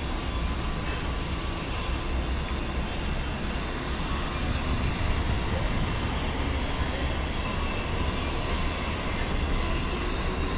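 Steady low rumble with a hiss over it and no distinct events.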